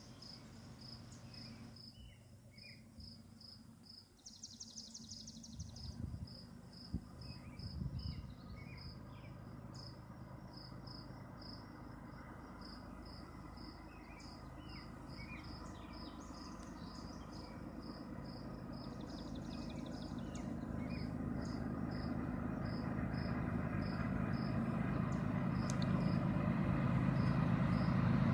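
An insect chirping in a steady, even rhythm, about two chirps a second. From about halfway a low rumble grows steadily louder until it is the loudest sound at the end: an approaching CSX freight train led by GE diesel locomotives.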